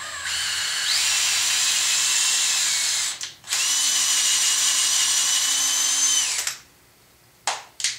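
Cordless drill turning a tap to chase paint-clogged threaded holes in a painted metal motor bracket. The motor whines in two steady runs of about three seconds each with a short break between, the first speeding up about a second in. Two short clicks follow near the end.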